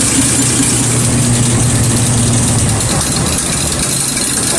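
Hartridge diesel injection pump test bench running with an injection pump on test and delivering fuel: a steady machine hum under a constant high hiss. The low hum drops away a little over halfway through while the hiss goes on.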